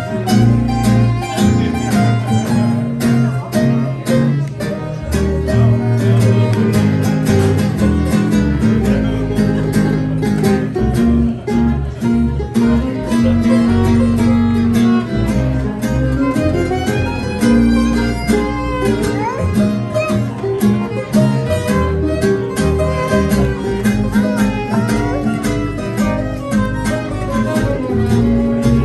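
Live acoustic string band playing a swing tune: fiddle melody over two strummed acoustic guitars and an upright bass keeping a steady beat.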